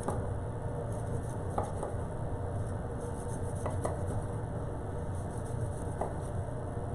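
Chef's knife slicing through a cooked New York strip steak, with a few light taps of the blade on a wooden cutting board, over a steady low background hum.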